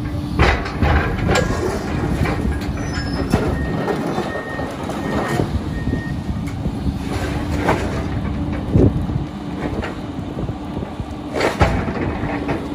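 Komatsu hydraulic excavator running steadily while its demolition grapple tears into the building, with repeated crashes and clanks of metal and debris, the loudest about half a second in, near the middle and about three-quarters through.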